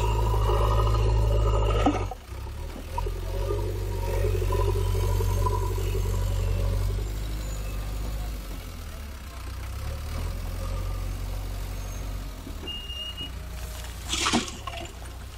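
JCB 3DX backhoe loader's diesel engine running hard as the front bucket digs into a soil pile, then easing back about two seconds in and running lower while the machine drives with the loaded bucket raised. Near the end a short burst of noise as the load begins to tip from the bucket into the trailer.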